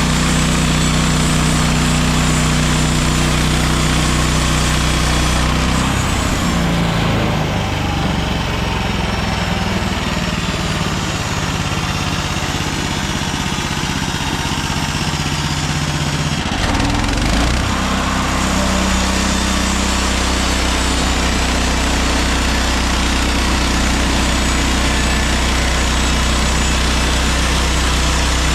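Gasoline engine of a MechMaxx SM32 portable bandsaw sawmill running steadily. From about six seconds in its pitch drops and wavers, then it settles back to a steady run at about seventeen seconds.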